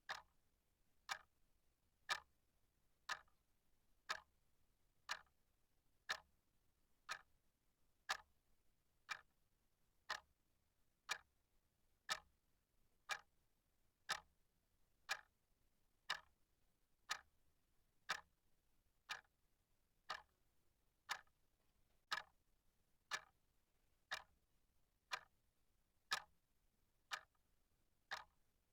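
Clock ticking steadily, one short, sharp tick a second.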